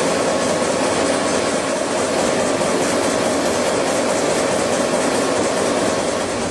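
Steady, loud mechanical running noise.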